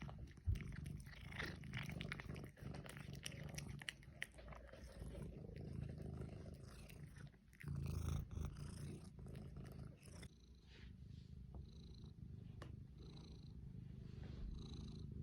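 Domestic cat purring, a faint, steady low rumble.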